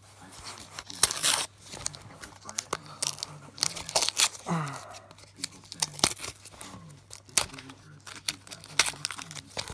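Masking tape being peeled and torn off a small cardboard box, in a run of irregular short rips and crinkles.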